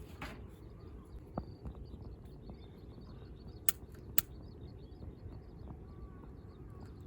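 Outdoor ambience with a steady low rumble and faint, scattered bird calls. Two sharp clicks about half a second apart come near the middle.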